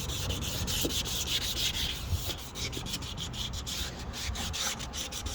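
Wet sanding a yellowed plastic headlight lens with 600-grit sandpaper: a quick, even rhythm of rubbing strokes.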